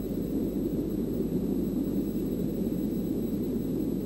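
Steady low rumble of a loaded, steam-hauled spoil train on the move, heard from a distance with no distinct exhaust beats.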